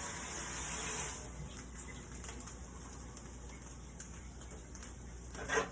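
Food frying in a pan: a soft steady sizzle with faint crackles, a little louder in the first second.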